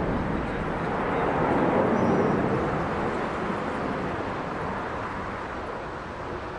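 A display aircraft's jet engine noise heard from a distance, a broad rushing sound that swells slightly about two seconds in and then slowly fades as the aircraft moves away.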